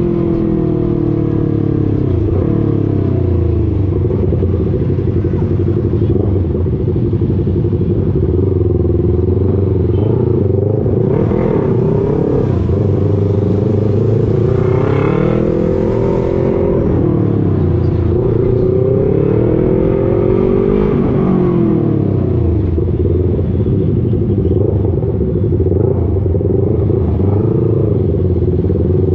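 Motorcycle engine running under way, heard from on board, its pitch rising and falling several times as the rider speeds up and eases off, over a steady low rumble.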